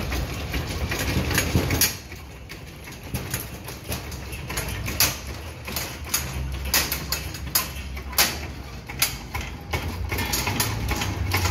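Irregular sharp metal clicks and knocks from the steel safety leg of a lift platform riding along its steel frame as the platform is raised, over a steady low hum.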